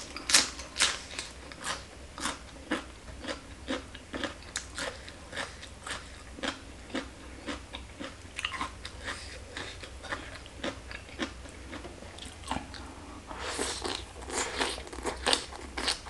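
Close-up crunching and chewing, starting with a sharp bite into a raw bitter gourd, then steady crisp crunches about twice a second. Near the end comes a denser, louder stretch of slurping as rice noodles are sucked into the mouth.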